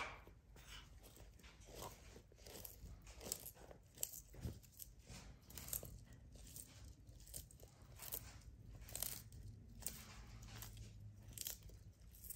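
Sulcata tortoise biting and chewing its food: faint, irregular crunches.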